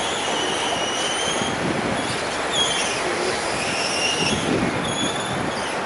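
Steady noise of city traffic and building-site activity, with several high metallic squeals over it that waver and glide in pitch, one falling about halfway through.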